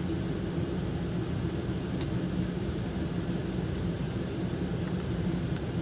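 Steady low mechanical hum with an even hiss, with a faint tick about a second and a half in.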